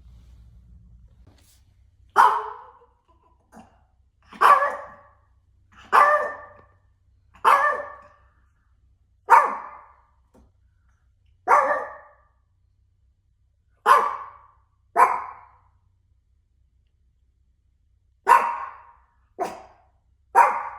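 A Maltipoo barking: about eleven single barks spaced one to two seconds apart, starting about two seconds in, with a short pause before three last barks near the end. This is alert barking, the dog acting as a 'doorbell' announcing someone at the door.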